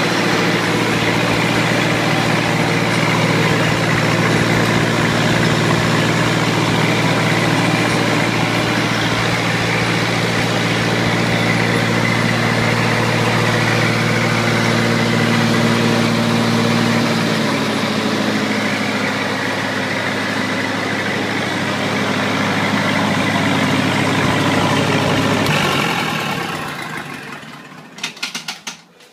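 Lincoln SA-200 Pipeliner engine-driven welder running steadily at idle. Its engine note shifts slightly partway through. Near the end it winds down to a stop with a few last evenly spaced chuffs.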